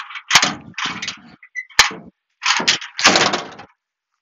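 The steel tailgate latches of a 1995 Mitsubishi Minicab mini truck being undone and the tailgate let down. There is a series of sharp metal clanks and rattles, with two crisp clicks about a second and a half apart.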